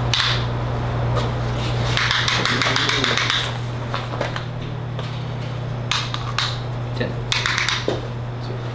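A steady low machine hum, with short bouts of scraping and rustling and a few light clicks from handling the horns and tools.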